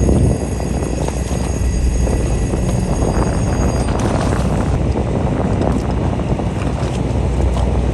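Fishing boat at sea: the engine running under a loud rush of wind on the microphone, with a few faint high steady tones that stop about four seconds in.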